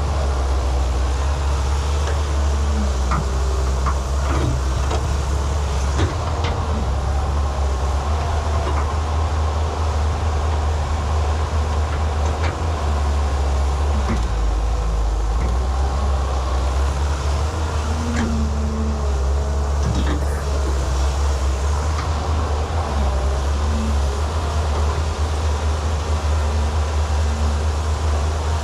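Excavator's diesel engine running steadily with a deep, even drone, and a few short knocks now and then.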